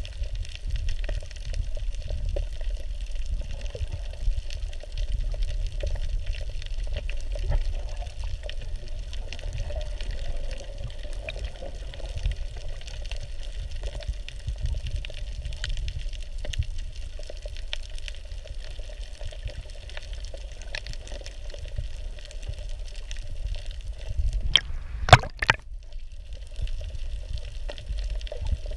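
Underwater ambience as picked up by a submerged camera: a steady low rumble of moving water with a constant fine crackle of tiny ticks. Near the end, a few sharp knocks close together stand out as the loudest sounds.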